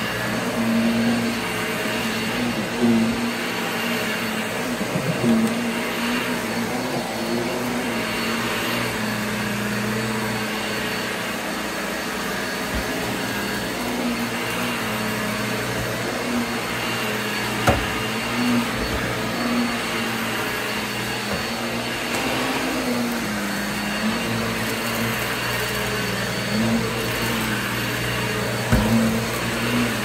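Vacuum cleaner running steadily while it is pushed over carpet, with a wavering hum and a few short knocks, the sharpest about eighteen seconds in.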